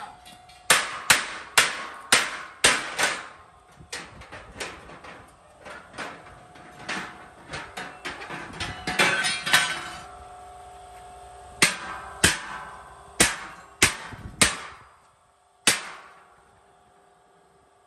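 Hammer blows on a cut-out steel sphere fire pit, knocking the cut pieces free: sharp metallic strikes, with the steel shell ringing on in a steady tone between blows. A quick run of about six blows comes first, then a dense flurry in the middle and a few spaced single blows, the last one near the end.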